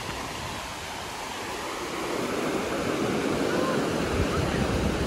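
Sea surf breaking and washing up the sandy shore, a steady rush of water that grows louder about two seconds in.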